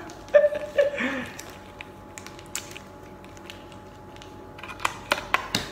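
An instant-noodle cup and its plastic seasoning sachet being handled, with several sharp crinkles and clicks near the end over a steady low hum. A couple of brief laughing voice sounds come about a second in.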